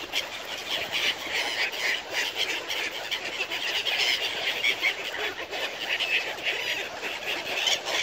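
A flock of birds calling and squawking busily, many short, high calls overlapping without a break.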